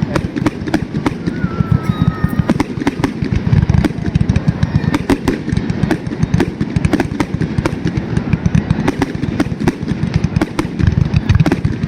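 Fireworks display going off: a rapid, continuous crackle of sharp cracks and pops over a steady low rumble of booms.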